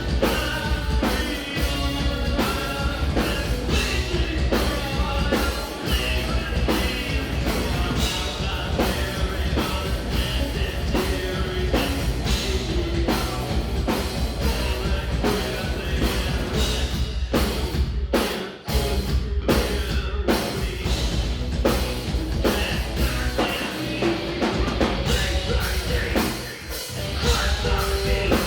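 A progressive metal band playing live, with a drum kit driving steadily under the guitars and bass. The music drops out briefly about two-thirds of the way through and again near the end.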